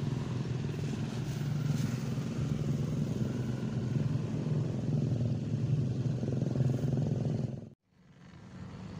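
An engine running steadily with a low, even drone, cutting off suddenly near the end.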